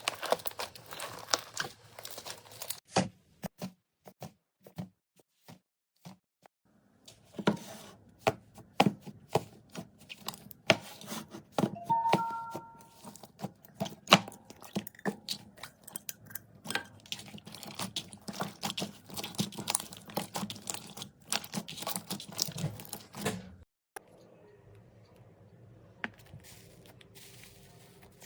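Slime being worked by hand, squeezed, poked and stretched, giving rapid crackling and popping clicks. There is a sparse patch a few seconds in, and the sound stops about four seconds before the end.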